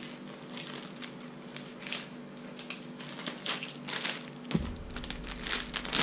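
Clear plastic packaging pouch crinkling and rustling as it is handled and opened, in irregular bursts that get louder and busier in the second half.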